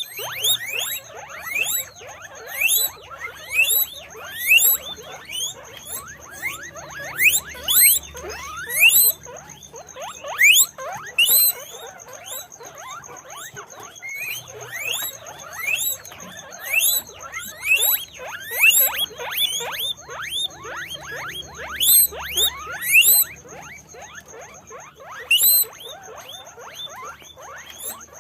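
Guinea pigs wheeking: repeated rising squeals, often overlapping, coming one or two a second. A faint steady high whine runs beneath them.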